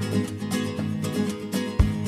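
Music led by a strummed acoustic guitar, chords struck in a steady rhythm, with a deep thump near the end.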